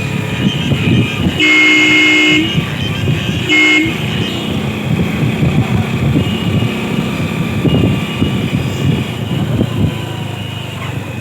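Hero Splendor motorcycle horn sounding twice, a long 'popo' honk of about a second and then a short one. Both come over the rushing wind and road noise of the moving bike.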